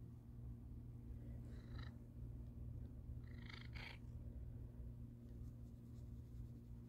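Domestic cat purring steadily as it is stroked, a continuous low rumble, with two brief faint higher noises about two and three and a half seconds in.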